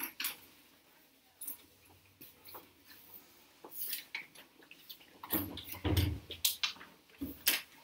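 Scattered clicks, taps and knocks of small objects being handled in a room, sparse at first and then a louder cluster of clatter and soft thuds from about five seconds in.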